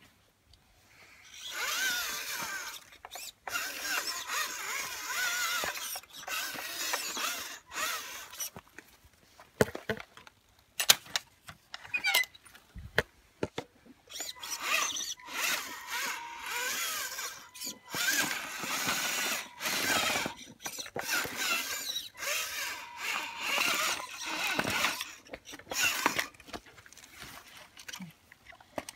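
An RC scale crawler's electric motor and geared drivetrain whining in bursts as the throttle is worked, stopping and starting every second or few.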